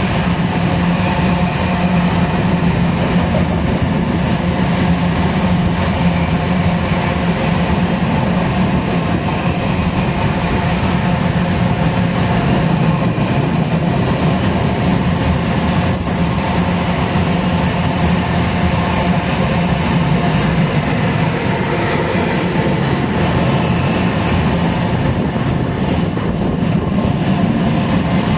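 Steady, unbroken rumble of a running vehicle or machine, loud and even throughout, with a strong low hum and faint steady tones above it.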